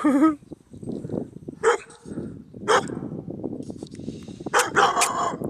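A dog barking: a handful of short, separate barks, the last two close together near the end.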